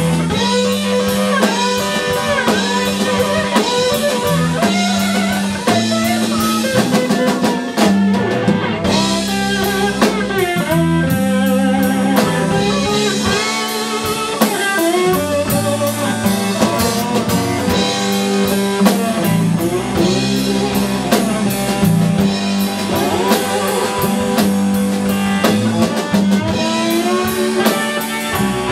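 Live band playing: two electric guitars trading bent, sliding notes over a drum kit keeping a steady beat.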